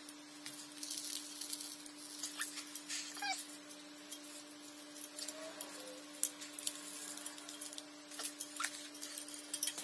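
Faint scattered clicks and rustles of hands and tools fitting wires and a replacement USB wall outlet back into its box, over a low steady hum.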